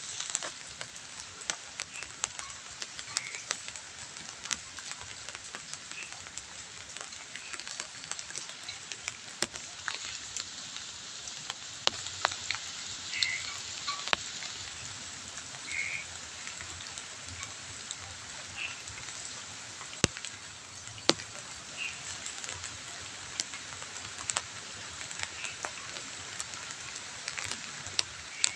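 Light drizzle falling steadily: an even hiss of rain with frequent sharp drips as drops hit the wet ground and leaves close by.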